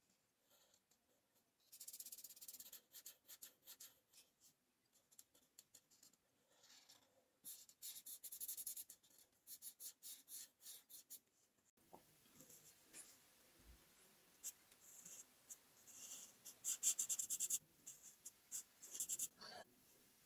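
Art marker tips stroking across paper in quick runs of short, scratchy strokes, with short pauses between the runs.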